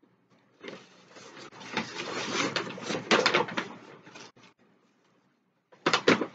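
Takeout food containers being handled up close: plastic and packaging rustling and clicking for a few seconds, then a few sharp clicks near the end.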